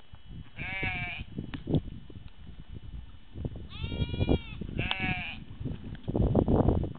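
A sheep bleating three times, high and wavering: once about half a second in, then twice in quick succession near the middle. Low rumbling and thumping noise runs underneath, loudest near the end.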